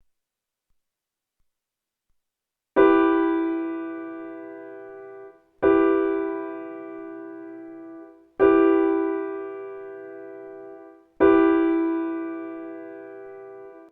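Silence for the first three seconds, then four piano chords struck one after another about every three seconds. Each chord starts sharply and is left to ring and fade.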